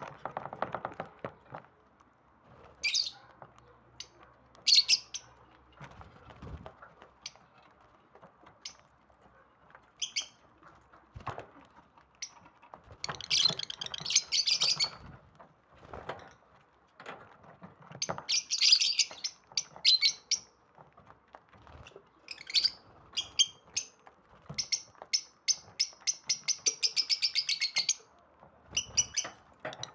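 Lovebirds chirping in short shrill bursts and clusters, ending in a fast run of about six or seven chirps a second near the end.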